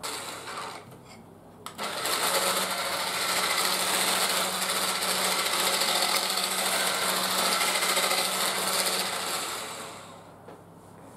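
Electric hand mixer running steadily in cake batter as flour is beaten in, starting about two seconds in and winding down near the end.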